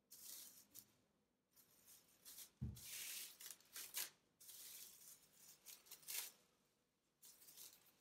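Plastic cling film crinkling and rustling in irregular bursts as it is pulled, stretched and pressed by hand onto wet watercolour paper, with one short low thump a little before three seconds in.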